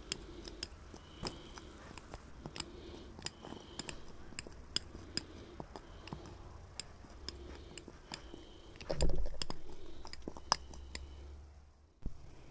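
Ground spices being stirred inside a jar: a utensil scraping and clicking irregularly against the jar, in rough strokes about once a second, with one louder knock about nine seconds in.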